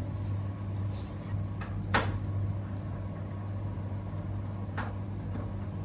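A few sharp clicks of small parts and tools as an opened hard drive's platters are handled, one about two seconds in and another near the end, over a steady low hum.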